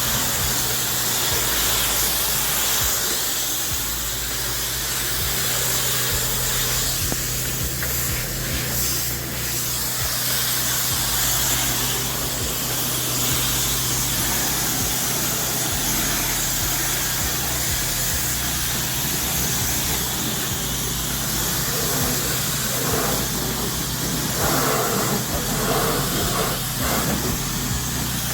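Pressure washer spraying: a steady hiss from the water jet over the machine's steady low hum.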